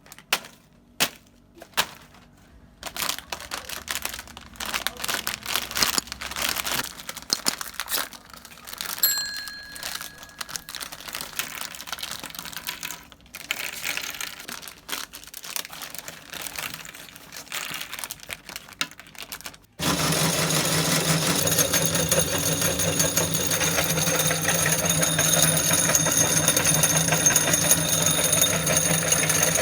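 Irregular crackling and sharp clicks of handling, with a short ding near the middle. About two-thirds in, an electric meat grinder switches on abruptly and runs steadily, its motor giving a loud even whirr over a low hum.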